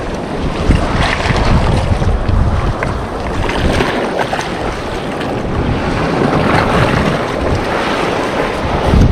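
Wind buffeting the microphone in a steady low rumble, over the wash of sea waves on the shore, with a few faint clicks.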